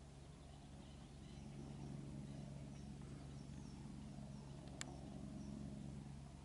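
Faint outdoor ambience: a steady low hum under scattered faint bird chirps, with one sharp click about three-quarters of the way through.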